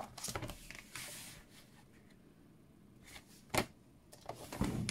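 Cardstock rustling and a few light taps as it is positioned on a paper trimmer, then one sharp click about three and a half seconds in from the trimmer's blade carriage as the scoring blade is drawn along the track to score the card for folding.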